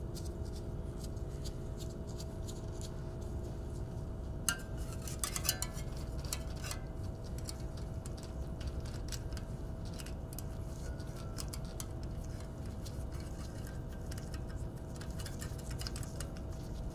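Light clicks and clinks of a small spoke magnet and its screw being handled against the rear wheel's steel spokes. They come in a cluster about four to seven seconds in and again near the end, over a steady low hum.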